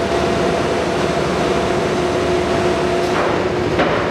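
Leblond NK 36 x 132 engine lathe running under power: a steady mechanical drone with a constant two-note hum from the spindle drive and gearing.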